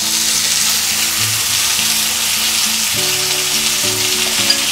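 Hot oil sizzling steadily in a frying pan as boiled chickpeas go into it with spluttered mustard seeds. Soft background music with held notes plays underneath.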